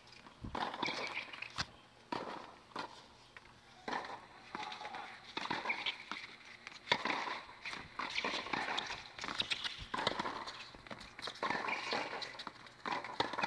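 Tennis rally on a hard court: sharp knocks of the ball struck by racquets and bouncing on the court, coming every second or so, with the players' shoes scuffing between shots.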